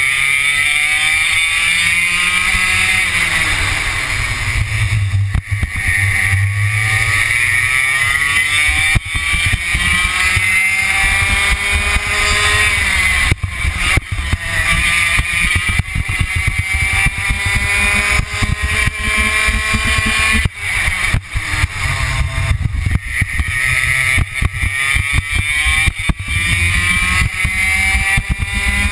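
Racing kart engine heard from on board at speed, its pitch climbing in long rising sweeps as it accelerates and dropping back as it slows for corners, several times over.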